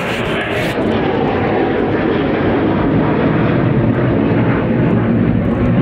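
A fixed-wing aircraft flying past, its engine noise steady and slowly growing a little louder.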